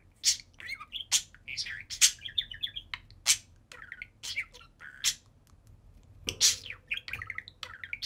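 A pair of budgerigars chirping: a string of short, sharp chirps broken by bursts of fast warbling chatter.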